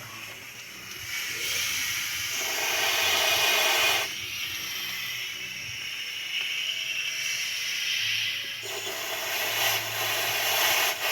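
Compressed air hissing as it is blown through an engine's oil passages. It comes in surges: strong for a couple of seconds, then weaker, then strong again with a short loud blast near the end. The air is checking whether the oil channel is clear, and it is judged to pass poorly, as from a partly blocked channel.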